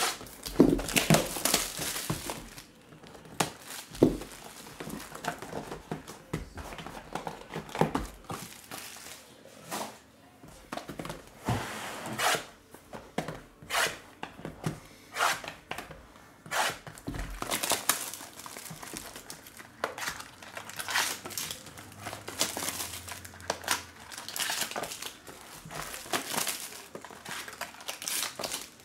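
Plastic shrink wrap being torn and crinkled off a sealed trading-card box and its cellophane-wrapped packs, in irregular rustling bursts with a few sharp knocks as the box and packs are handled.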